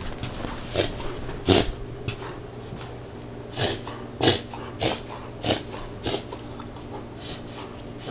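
A puppy with kennel cough breathing with difficulty: a string of short, harsh, noisy breaths, about one every half second through the middle stretch.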